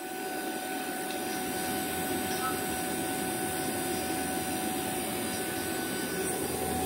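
Fieldpiece VP85 two-stage rotary-vane vacuum pump running steadily with a constant hum and whine, pulling a deep vacuum of about 200 microns.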